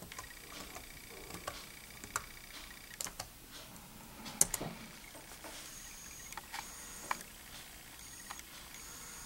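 Keys pressed one at a time on a Dell Inspiron 1200 laptop keyboard while a password is typed: scattered, irregular clicks, with one sharper click about four and a half seconds in.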